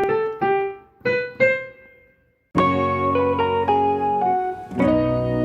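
Background music: a few bright struck keyboard notes ringing and fading, a brief pause about two seconds in, then a fuller tune with chords and bass.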